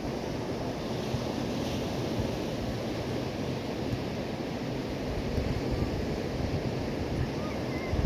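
Sea surf washing on the shore, with wind rumbling on the microphone.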